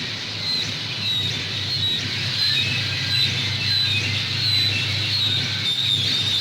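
Noise music: a steady low hum under a hiss, with short high chirping tones flickering on and off several times a second.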